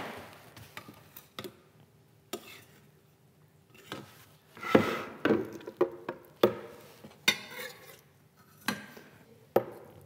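Spoon knocking and scraping against a saucepan and a plastic blender jar as cooked broccoli is scooped across: a string of scattered knocks and clinks, one of them ringing briefly.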